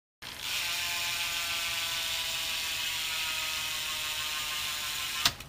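Eastern rear hub of a BMX bike freewheeling as the back wheel spins: a real loud, steady, rapid ratcheting buzz from the pawls, dropping slightly in pitch as the wheel slows. It ends with a sharp click a little past five seconds in.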